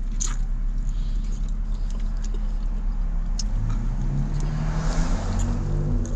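Steady low hum of a vehicle engine with street traffic; another vehicle passes about four to five seconds in, its engine note rising as it goes by. A few faint clicks are heard as well.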